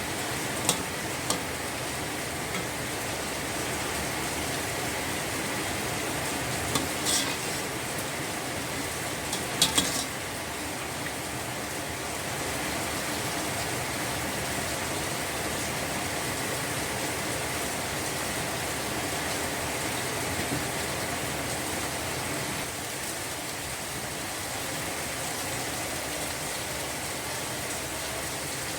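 Food sizzling steadily in a hot pan, with a few sharp clicks of a utensil against the pan, twice close together just before ten seconds in.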